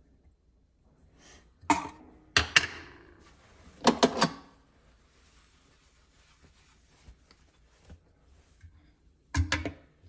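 Espresso gear being handled on a countertop: sharp knocks and short clatters of parts of a Versalab M4 grinder being taken off and set down, three times in the first half. Near the end, another short clatter as a portafilter is seated under the grinder.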